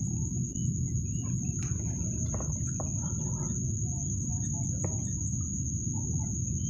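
Field ambience: a steady high-pitched insect trill over a low rumble, with scattered short bird chirps and calls and a few faint clicks.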